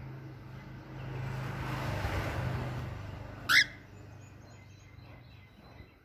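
A cockatiel gives one short, shrill call about three and a half seconds in, falling steeply in pitch, the loudest sound here. Before it, a broad swell of noise rises and fades over the first few seconds.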